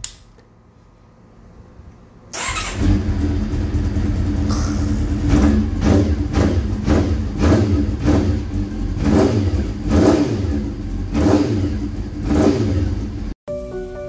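Honda CBR400RR NC29's freshly rebuilt 400 cc inline-four starting up after a click of the ignition key. It is run for its first time after the engine rebuild and revved in many quick throttle blips. It cuts off abruptly near the end.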